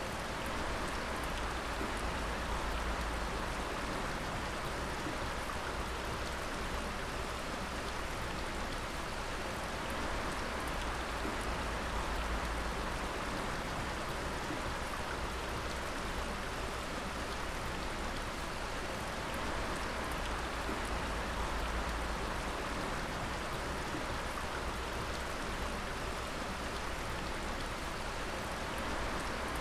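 Water dripping steadily, a dense, even patter of many drops over a constant wash of running water.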